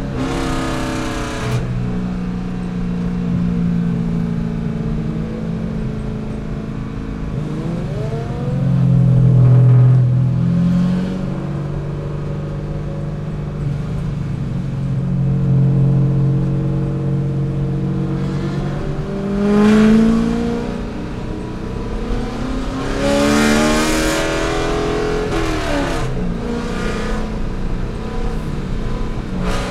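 C5 Corvette's V8 engine running steadily for long stretches, with its pitch rising a few times as it revs, most strongly a little over three-quarters of the way through before falling away again.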